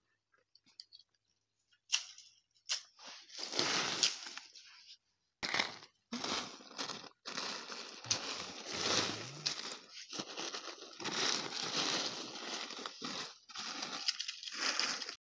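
Hands rummaging through a pile of freshly picked olives, dry olive leaves and twigs on a tarp: dry rustling and crackling. It comes in scattered bursts at first and runs nearly continuously over the second half.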